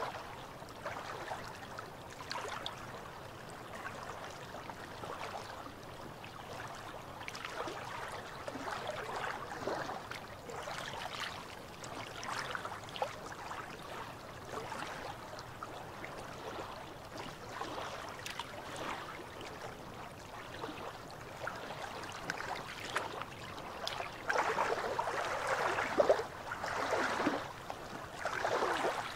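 Small waves of a calm sea lapping and splashing against shoreline rocks in an irregular rhythm, with a run of louder splashes near the end.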